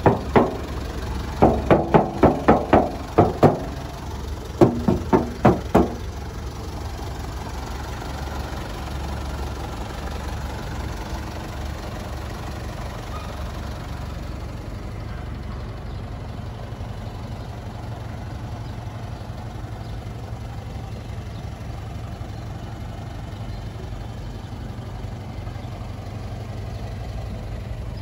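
Mitsubishi Strada Triton GLS 4x4 diesel engine idling steadily. Early on there are two quick runs of short, sharp pitched pulses, about four a second.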